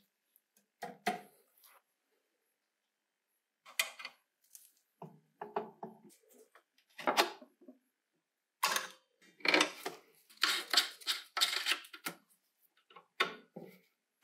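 Intermittent clicks and clatter of hard objects being handled, in short uneven bursts with silence between them.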